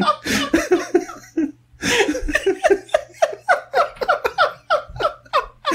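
People laughing hard in a quick run of repeated ha sounds, breaking off for breath about a second and a half in, then laughing again.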